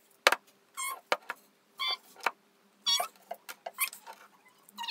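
A metal teaspoon scooping sugar from a glass jar and tipping it into a glass tumbler, with repeated sharp clinks and short high squeaks about every second.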